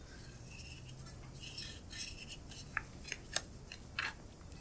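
Faint tabletop handling sounds: a paper pattern piece rustling and a few light clicks and taps as a fabric marker and small sewing tools are moved about.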